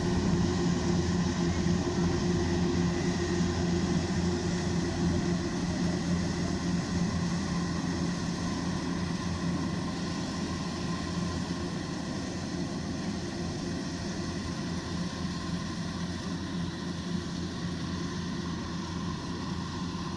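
Kubota DC-105X combine harvester's diesel engine and machinery running with a steady drone, growing a little fainter after several seconds.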